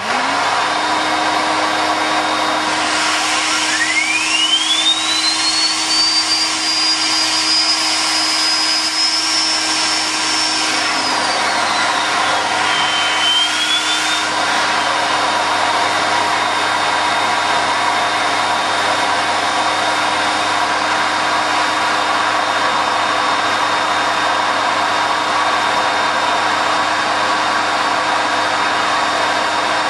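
Homemade jet engine made from a car turbocharger, with a cocktail-shaker combustion chamber, starting and running: a loud steady rush with the turbo's whine rising in pitch from about three seconds in and holding high, then falling away and wavering about twelve seconds in before settling, over a lower steady hum that stops about eleven seconds in. The run is kept to low power by oscillations that the builder puts down to too much diesel in the fuel mix.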